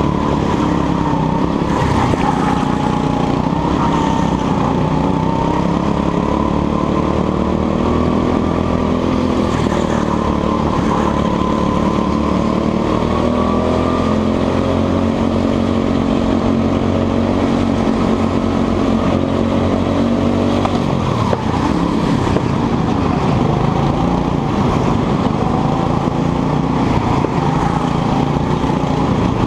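Go-kart engine running at full throttle, heard from onboard the kart: its pitch climbs steadily for a long stretch, then drops sharply about two-thirds of the way through as the throttle comes off for a corner, and picks up again.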